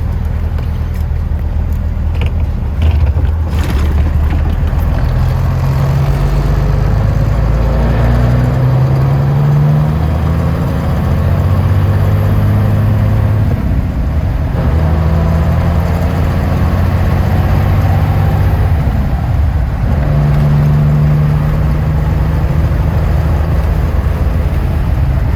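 Cummins diesel engine of a cabover semi truck heard from inside its insulated cab, running hard with the engine note climbing and then dropping off several times as it works through the gears.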